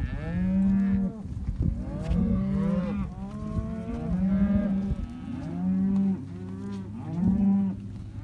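A herd of beef cattle mooing, several cows calling over one another with a new call about every second.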